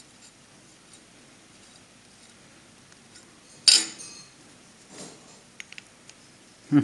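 Metal parts clinking as the broken pieces of a cast aluminium cylinder head plate are handled and pressed together against a steel block on a steel table: one sharp clink with a brief ring about halfway, a few light ticks, then a duller knock at the end.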